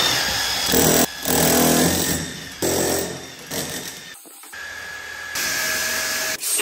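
Electric demolition hammer chiselling concrete floor screed to free old central heating pipes. It runs in several bursts with short stops between them, the longest pause about four seconds in.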